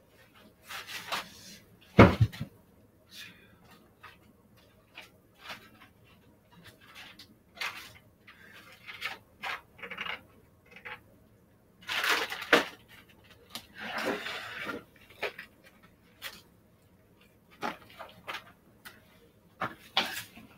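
A person handling and moving things around a room: scattered knocks, clatters and rustling. There is one loud thump about two seconds in, and longer rustling stretches a little past halfway.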